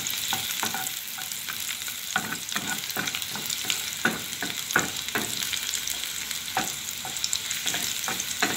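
Chopped garlic sizzling in hot cooking oil in a non-stick frying pan, frying until golden, with a steady hiss. A wooden spatula stirs it, scraping and tapping against the pan in short, irregular strokes.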